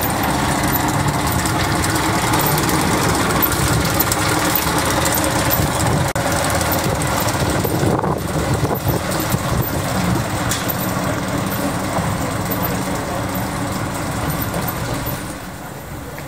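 Steady rumbling noise of a running vehicle, easing off a little near the end.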